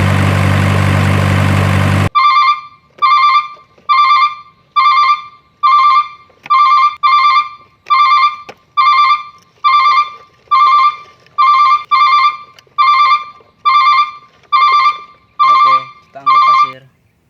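A steady engine-like drone cuts off suddenly about two seconds in. It is followed by a long run of electronic beeps, about two a second, each one a short pitched tone that fades quickly, like a toy truck's reversing alarm. The beeping stops just before the end.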